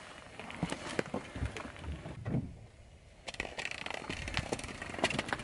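Car tyre rolling slowly over a foam clog and gritty asphalt: a string of crackles and small pops with a few low thuds, the crackling growing denser in the second half.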